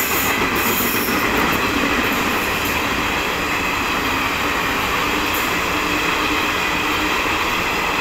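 Passenger coaches of a Janshatabdi express train passing close by at speed: a steady, loud rush of steel wheels running on the rails.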